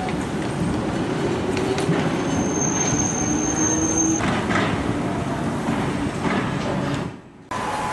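Hiroden streetcar running over the tracks at a station, a dense rumble with clacks, and a thin high wheel squeal held for about two seconds midway. The sound drops out briefly near the end.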